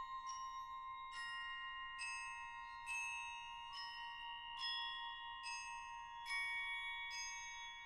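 Tuned metal percussion bars played softly, one struck note roughly every second, each note ringing on, over a steady held high tone.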